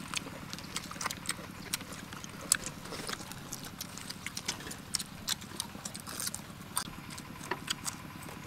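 Several people chewing and smacking their lips while eating roasted chicken by hand: irregular small clicks and smacks, over a faint steady low hum.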